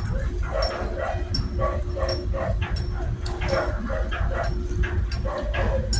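A dog barking and yelping repeatedly in short calls, several a second, over a steady low rumble.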